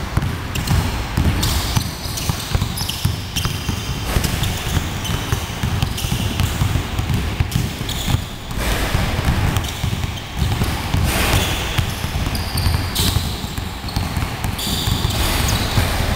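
Several basketballs dribbled at once on a wooden gym floor: a dense, continuous run of overlapping bounces.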